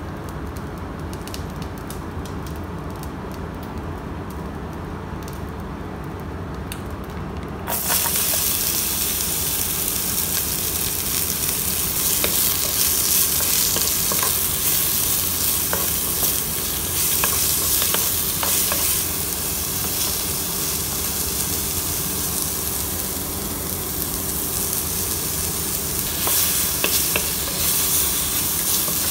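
Sliced onions and garlic sizzling in hot oil in a metal wok, stirred with a wooden spatula that scrapes and clicks against the pan. The loud sizzle starts suddenly about eight seconds in, after a quieter stretch.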